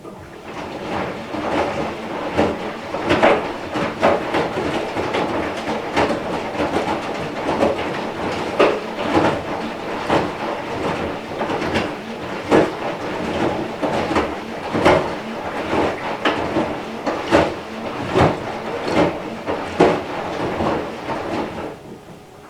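Front-loading washing machine running, its drum turning with laundry tumbling inside, giving a steady rumble broken by irregular knocks and clatters about once or twice a second. The sound starts and stops abruptly.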